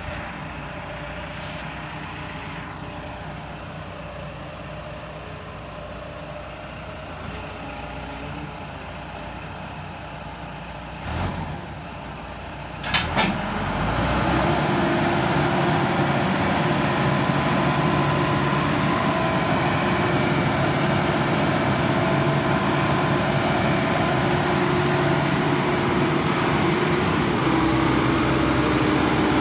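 JLG G12-55A telehandler's diesel engine idling just after start-up. About thirteen seconds in there are a couple of knocks, then the engine runs steadily louder at higher revs with a steady whine while the hydraulic boom is raised.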